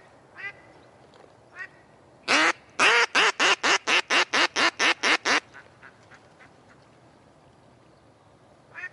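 A hen decoy duck (domestic mallard type) quacks loudly in a run of calls: one longer quack, then about a dozen quick quacks at roughly five a second. This is the hen's calling that draws in drakes. A few faint single quacks come before and after the run.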